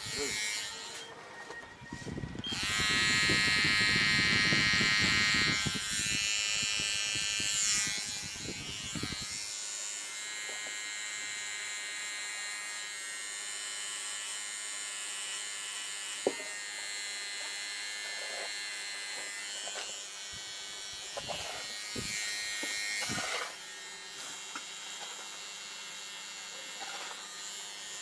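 Electric hair trimmer buzzing as it cuts along the hairline at the temple. It runs louder and rougher for several seconds near the start, then settles into a steady buzz, with a single small click about two-thirds of the way through.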